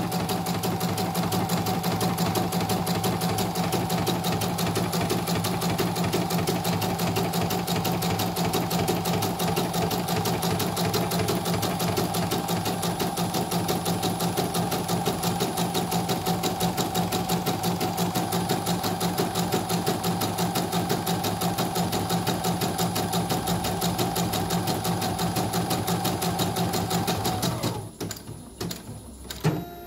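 CNY portable computerized embroidery machine stitching steadily and rapidly on a test design, running with its covers off after a repair for untidy stitching. The stitching stops suddenly near the end.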